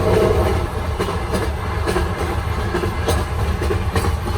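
Russian Railways passenger train running, heard from inside a coupe compartment: a steady low rumble with scattered clicks and knocks from the wheels and carriage.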